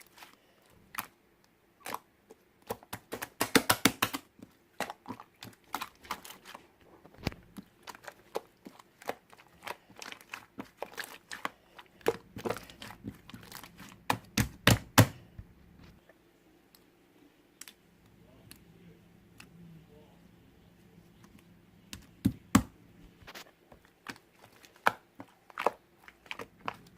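Crinkling and tearing of a chewy candy's paper or plastic wrapper, in many short sharp crackles, densest about four seconds in.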